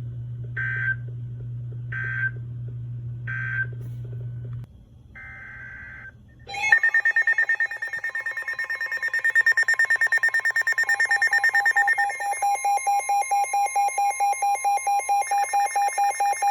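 Emergency Alert System tones on a NOAA Weather Radio broadcast: three short, shrill digital data bursts about a second and a half apart, then a longer burst, over a low hum. About seven seconds in, a loud electronic alert tone starts, pulsing rapidly at about four beats a second, and it changes pitch about halfway through.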